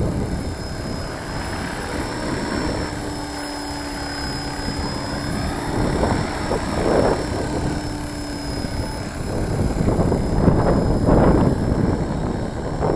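Walkera V450D03 electric RC helicopter hovering, with a steady high motor whine over the rotor noise. Wind buffets the microphone in gusts, heavier in the last few seconds.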